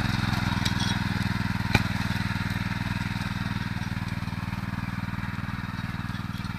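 Datsu motor hoe's small petrol engine running steadily as its tines work the soil, growing slightly quieter as the machine moves away. A single sharp click cuts through it about two seconds in.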